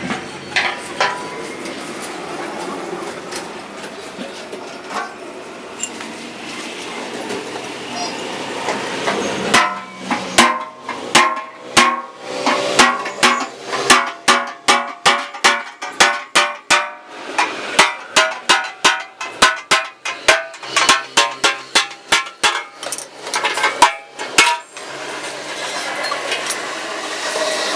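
Hammer blows on a motorcycle's sheet-steel fuel tank, about two strikes a second, each ringing briefly. The run starts about a third of the way in and lasts some fifteen seconds, with steady workshop noise before and after it.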